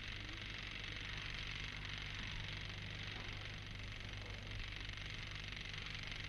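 Steady hiss with a low, even hum: the background noise of an old soundtrack, with no other sound standing out.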